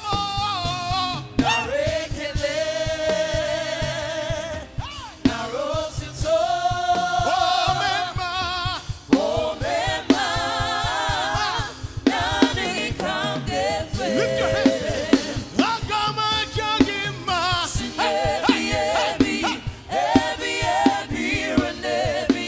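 Live gospel praise music: a lead singer and backing vocalists singing together over a band with a steady beat.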